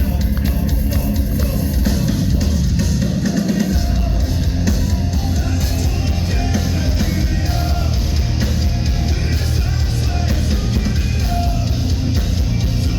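Heavy metal band playing live, with a loud, steady, pounding drum kit under the full band.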